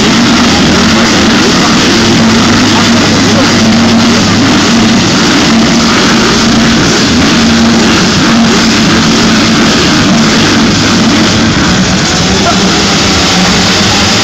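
A full start line of motocross bikes revving together at the gate, a loud, dense, steady drone of many engines held on the throttle while the riders wait for the gate to drop.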